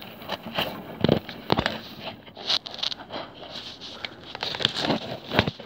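Footsteps in snow: an uneven series of crunches, with the rustle of a jacket and the handheld camera being jostled against it.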